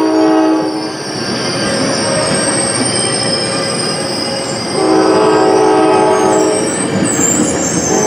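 Sounder commuter train departing, its locomotive horn sounding a chord in blasts: one ending about a second in, another of about two seconds in the middle, and a third starting near the end. Between the blasts the bilevel coaches roll past close by, with a high squeal from the wheels.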